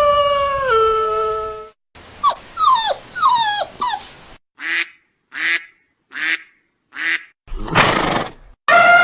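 A run of dog-like animal calls: a long howl that drops in pitch about a second in, a few short yelps that fall in pitch, four short barks about three-quarters of a second apart, a longer rough cry, then another long howl near the end.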